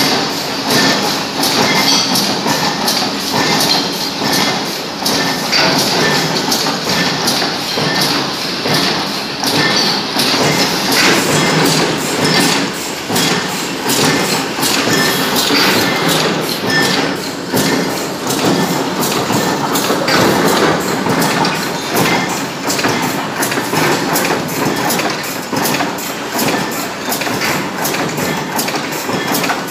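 Press-shop machinery running, including a cradle-type coil decoiler-straightener and NC servo feeder feeding steel strip: a continuous loud mechanical clatter with rapid, closely spaced metallic knocks.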